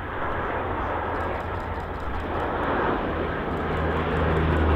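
Lockheed P-3C Orion's four Allison T56 turboprops running on a slow pass, growing steadily louder as the aircraft approaches, with a low propeller hum coming up near the end.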